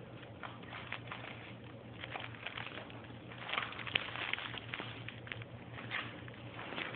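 Wrapping paper crinkling and tearing in irregular crackles as a dog noses and tugs at it, loudest about three and a half seconds in and again near the end.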